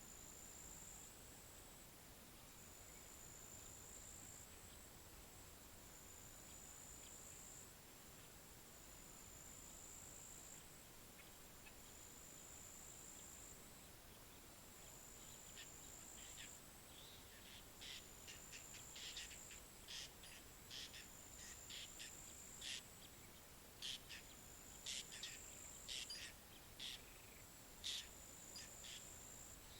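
Faint outdoor ambience: a steady, high insect trill, stepping slightly in pitch every second or so. From about halfway through, short quick bird chirps come in irregularly, at times several a second.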